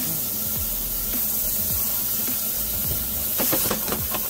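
Diced onion and butter sizzling in smoking-hot olive oil in a pot: a steady loud hiss, with a quick run of spitting crackles about three and a half seconds in. The oil is overheated and smoking.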